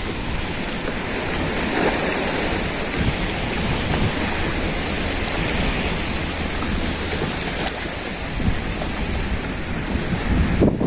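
Wind buffeting the microphone in gusts, over a steady wash of small waves lapping at the shore.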